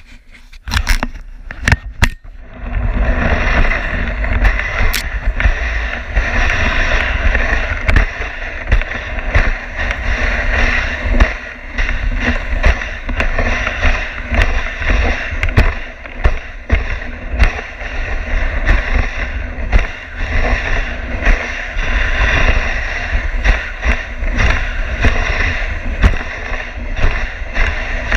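Dog sled sliding over packed snow trail: a continuous hiss and scrape of the runners with frequent knocks and jolts as the sled rides the bumps. The hiss sets in about two seconds in, after a few sharp knocks.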